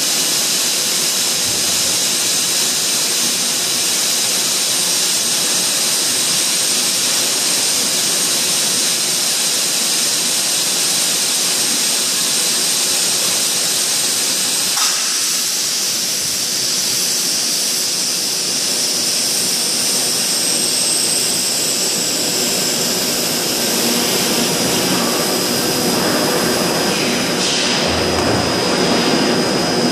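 Steady loud hiss of running factory machinery, with a high steady whine on top and a single sharp click about halfway through.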